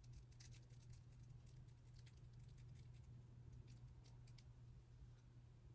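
Faint, irregular little clicks and scratches of a hair razor slicing through the transparent lace of a frontal wig along the hairline, over a low steady hum.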